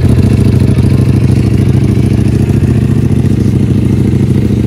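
Motorcycle engine running steadily: a loud, deep, muffled sound with almost nothing above the low range.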